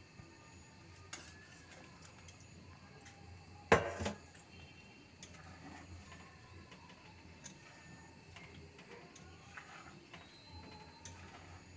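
A metal spatula clanks loudly against a metal kadai about four seconds in. Otherwise there are faint scrapes and light clinks as prawns are stirred into the curry gravy.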